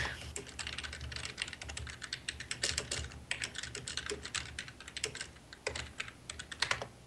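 Typing on a computer keyboard: a quick, uneven run of key clicks with a short pause about three seconds in.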